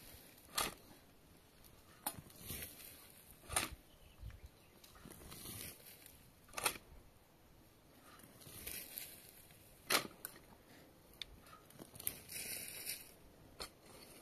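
Long-handled metal shovel digging in dry, stony soil: sharp crunching strikes of the blade going into the ground, about eight in all, between hissing swishes of loose earth being scooped and thrown.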